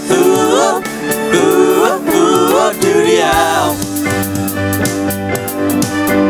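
Upbeat children's song: a wordless melody sliding up and down in pitch over held backing chords and a beat. The melody stops a little over halfway through, leaving only the backing.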